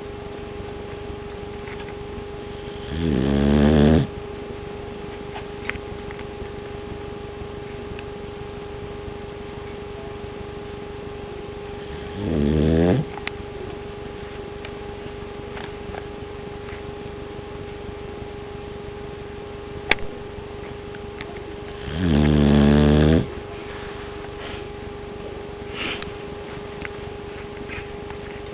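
A sleeping pet snoring: three loud, buzzing snores about a second long, roughly ten seconds apart, over a steady background hum.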